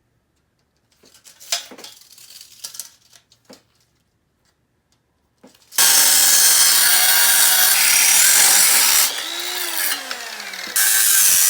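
A few light knocks and clatter of handling, then a power saw starts about six seconds in and runs loudly, cutting a handrail to a marked length. Partway through it drops in level with a falling pitch, then comes back to full level near the end.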